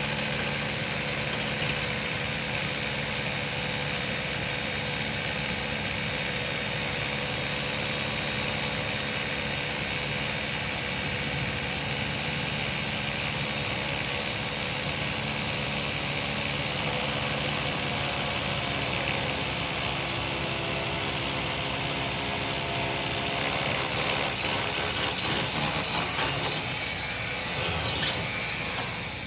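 A machine running steadily, with a constant hum and hiss. A couple of brief louder sounds come near the end.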